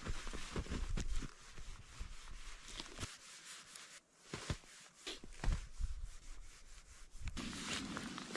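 Crunching and scraping in deep snow, with irregular soft thumps, a brief quiet pause about four seconds in, and denser scraping near the end.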